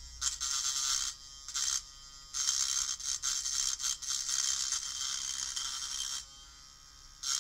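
A Hypograph tattoo machine fitted with a rotary file, its small motor spinning the file as it rasps along the sharp milled edge of an aluminium block, deburring it. The cutting comes in stretches, breaking off briefly about one and two seconds in and again near the end, with the motor's faint whine in the gaps.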